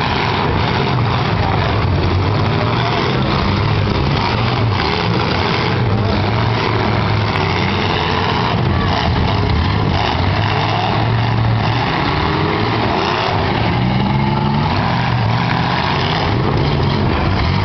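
Several eight-cylinder demolition-derby cars' engines running and revving together, loud and continuous, with a few sharper knocks mixed in.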